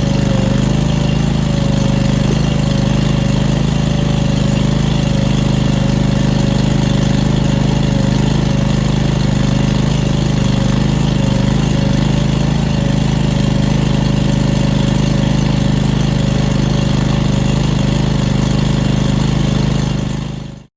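Engine of the trenching machinery running steadily at one speed, with a constant low hum, then fading out quickly at the very end.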